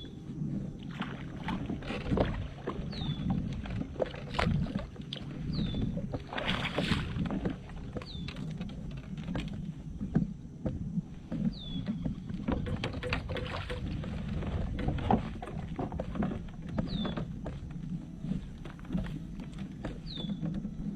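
Scattered knocks and clicks of handling on a fishing kayak over a low rumble of wind or water. A short, high, falling chirp repeats every couple of seconds.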